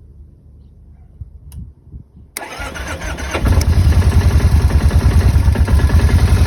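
Kawasaki motorcycle engine started: a sudden burst of starter cranking about two and a half seconds in, and about a second later the engine catches and runs at a loud, fast-pulsing idle.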